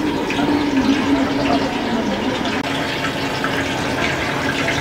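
Chicken pieces deep-frying in a large steel kadai of hot oil, bubbling and sizzling steadily, with a low wavering hum underneath.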